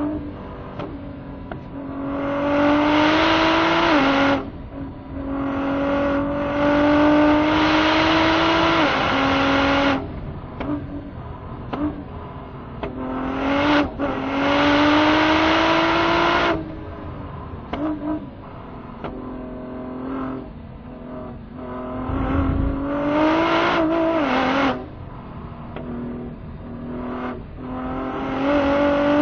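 Ford GT's twin-turbo V6 at full throttle on a lap, climbing in pitch through each gear with a sudden drop at every upshift, in several hard bursts between lifts off the throttle. A brief low thump comes about two-thirds of the way through.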